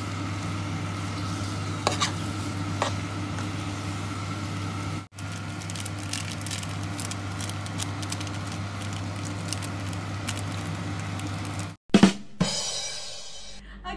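Instant noodles sizzling in a metal pan as a fork stirs them, with short scrapes and clicks of the utensil over a steady low hum. Near the end the sound cuts to a short jingle with loud drum hits.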